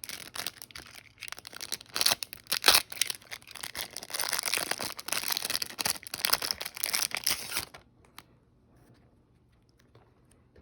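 Trading card pack wrapper being torn open and crinkled: irregular crackling and ripping that stops suddenly about three-quarters of the way through.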